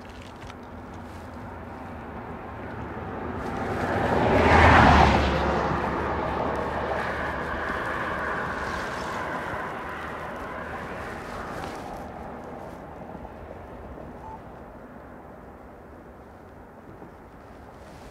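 A vehicle passes close by, building up over a couple of seconds to a peak about five seconds in and then fading away slowly, over the steady rush of river water.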